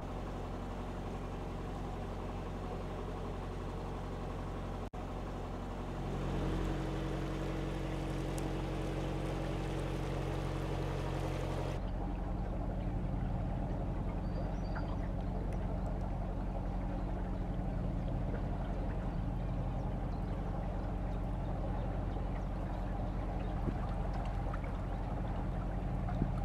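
A narrowboat's diesel engine running steadily while under way, a low hum with water noise around the hull. The pitch of the hum shifts slightly about six seconds in and again about twelve seconds in.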